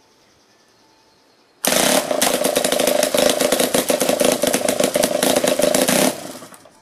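Weed eater two-stroke engine converted to run on compressed air pulsed in by an electric solenoid valve, running unloaded. It comes up to high speed suddenly about a second and a half in as a loud, rapid run of strokes, runs for about four seconds, then is shut off and winds down quickly.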